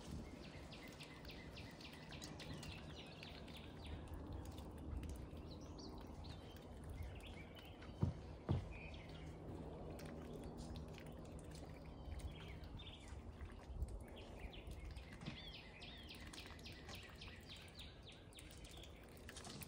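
Faint outdoor ambience with small birds chirping in quick runs of notes. Two sharp knocks about half a second apart, some eight seconds in, are the loudest sounds.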